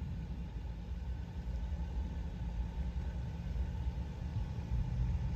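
An engine running steadily at a low, even pitch.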